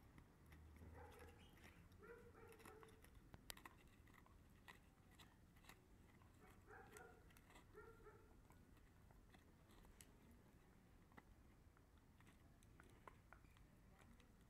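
Small dog gnawing a hard dried chew bone: faint, irregular crunching clicks of its teeth on the chew.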